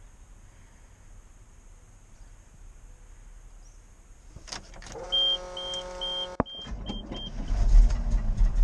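After a few seconds of quiet, a row of short, even electronic beeps sounds over a steady tone. Then a sharp click, and the 1988 GMC 6000 truck's gasoline engine cranks loudly on booster power without catching: a hard start.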